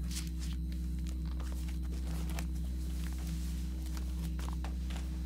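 Pages of a large paper ledger being leafed through: irregular light rustles and clicks over a steady low hum.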